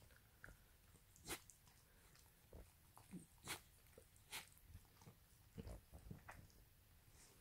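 Faint, scattered wet licks and lip-smacks of a small dog licking toothpaste off a toothbrush, a few of them sharp little clicks.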